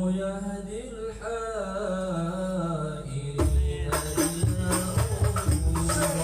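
A man sings a sholawat melody solo, in long, bending, ornamented phrases over a low held tone. About three and a half seconds in, frame drums and a jingling tambourine come in with a steady rhythm under the voice.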